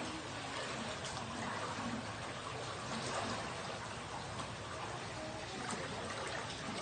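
Steady rush of running floodwater.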